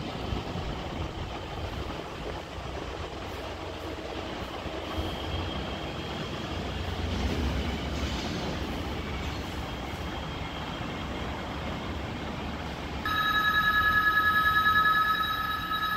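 A steady low rumbling background noise. About thirteen seconds in, a loud electronic two-tone warbling beep starts and keeps going.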